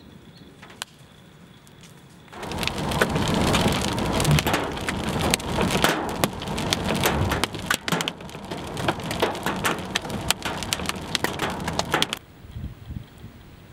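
Heavy rain pelting a car's roof and windscreen, a dense patter of sharp hits. It starts suddenly about two seconds in and cuts off abruptly near the end; before it only a few scattered drops tick.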